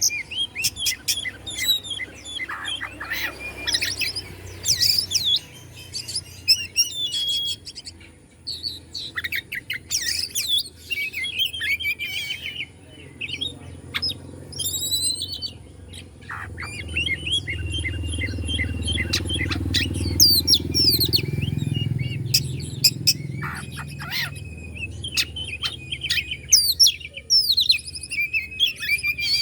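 Oriental magpie-robin (kacer) singing a long, varied song of clear whistles, chirps and fast trills, with short pauses between phrases. A low rumble rises in the background about halfway through and fades again.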